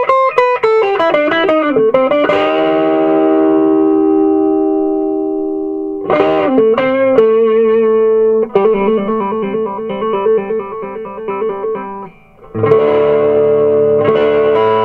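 Electric guitar played through a 1965 Gibson Skylark tube amp driving two Eminence Ramrod speakers. A run of quick notes gives way to chords left to ring and die away, then a rhythmically pulsing passage. The sound breaks off briefly about twelve seconds in, and a new chord rings out.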